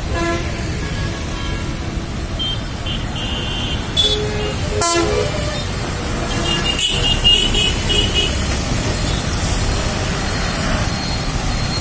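Busy road traffic: motorbike, car and bus engines running past in a steady rumble, with several short vehicle horn toots, including a quick string of toots a little past the middle.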